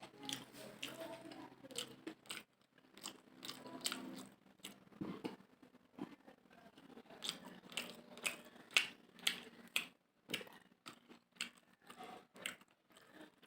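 Close-up chewing of a mouthful of mutton biryani: wet lip smacks and sharp mouth clicks, several a second and unevenly spaced.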